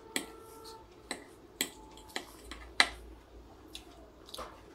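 Metal fork clicking against a plate while twirling and lifting noodles: about seven sharp, separate clicks, the loudest near the middle. A faint steady whine fades out under a second in.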